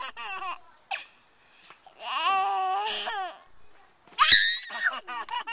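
Baby laughing in short giggly fits, with a longer warbling laugh about two seconds in and a loud, shrill squeal near the end.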